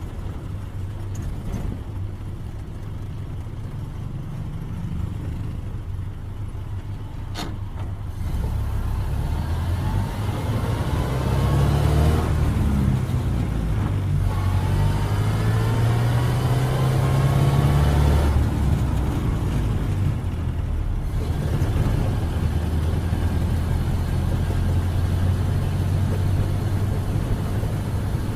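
1931 Ford Model A's four-cylinder flathead engine running at low speed, then after a single sharp click pulling away louder with road noise. A rising gear whine climbs twice as it gathers speed.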